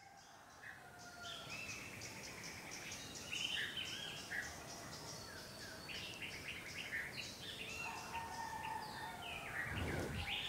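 Birds chirping and singing with insects trilling, a rural outdoor soundscape fading up from silence at the start. A brief low thud near the end.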